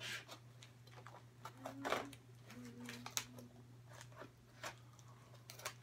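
Faint, irregular scratches and clicks of a scalpel blade cutting through the packing tape on a box.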